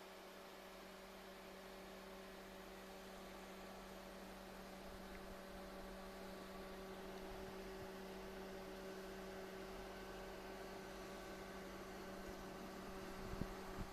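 A steady low hum made of several steady tones, slowly growing a little louder.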